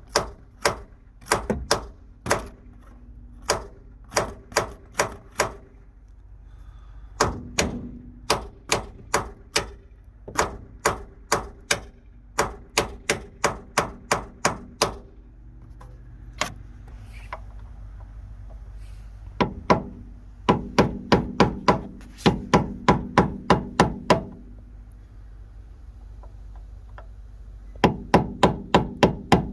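Hammer blows on the bushing driver tool, knocking a stuck lower door-hinge pin bushing out of a Jeep Wrangler JK door hinge. The blows are short, quick, sharp strikes in runs of about three to four a second, with pauses of a few seconds between runs. The bushing is hard to get out.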